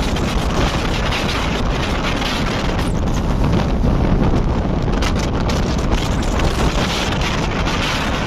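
Wind rushing over the microphone together with the steady running rumble of a moving passenger train, heard from an open coach door at speed.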